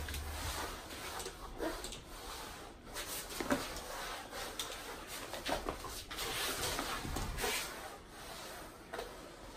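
Mop head swished and scrubbed fast across a concrete floor, with irregular scuffs and light knocks as a golden retriever snaps at and grabs the mop.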